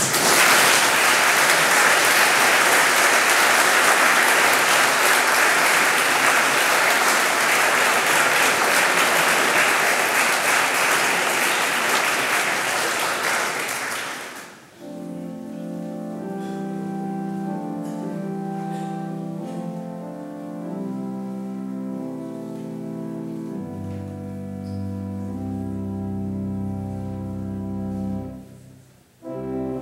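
Audience applauding for about fourteen seconds, then a church organ playing slow held chords that change in steps, with deep bass notes coming in about two-thirds of the way through.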